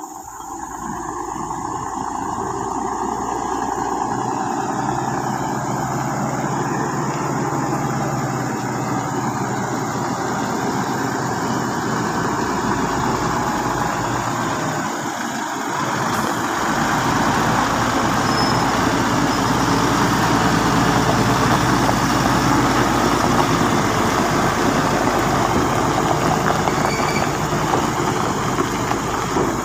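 Volvo truck's diesel engine running under load as it hauls a lowboy trailer carrying heavy machinery, growing louder as it approaches and passes close by. The sound dips briefly about halfway through, then rises again.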